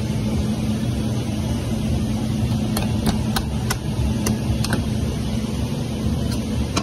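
A steady engine hum running at idle, with a quick string of about six sharp clicks between about three and five seconds in.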